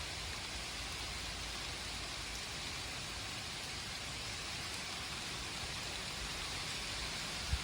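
Steady thunderstorm rain falling, an even hiss, with a brief low thump just before the end.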